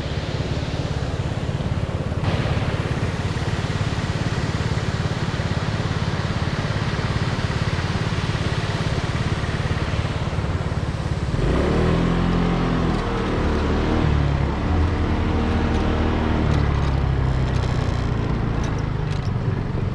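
Car driving: a steady rush of road and engine noise, with the engine's note shifting up and down from about halfway through.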